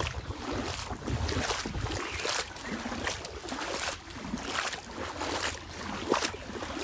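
Wind buffeting the microphone, with a low rumble for the first two seconds, then an uneven hiss with irregular crackles.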